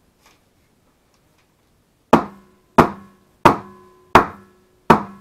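A soap mold filled with fresh soap batter being banged down five times, about two-thirds of a second apart, starting about two seconds in, each knock ringing briefly. The pounding settles the batter into the mold and knocks out air pockets.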